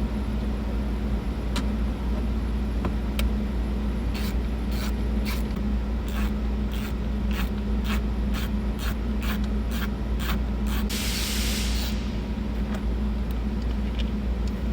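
Regular sharp clicks from about four to eleven seconds in as a driver backs out the T20 Torx screws of a Jeep Wrangler JKU's rear sound-bar speaker cover, over a steady low hum. About a second-long hiss comes near the end of the clicking.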